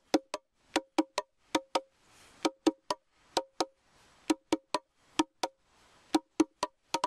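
Meinl Bongo Cajon, a wooden box bongo, played with bare fingers: quick, sharp strikes in a syncopated rhythm, sounding a lower and a higher tone.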